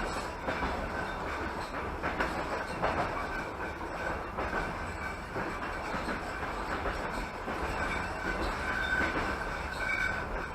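Passenger train carriage running at speed, heard from inside: a steady rumble and rattle of wheels on rails with irregular clicks and a faint, on-and-off high squeal.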